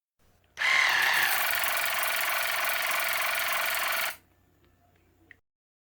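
Waterpik Cordless Plus water flosser running on test, its pump giving a loud, fast-pulsing buzz for about three and a half seconds before it is switched off. The pump has just been repaired with a new plastic intake check-valve flap. A small click follows near the end.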